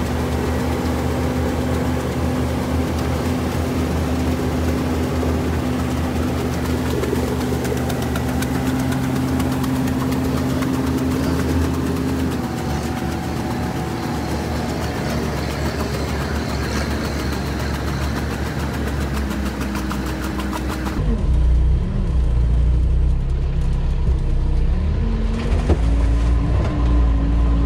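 Sherp all-terrain vehicle's diesel engine running steadily as its huge low-pressure tyres churn through a shallow stream, with water splashing. About three-quarters of the way in, the engine is heard from inside the cab, louder and deeper. Its pitch then rises as it revs.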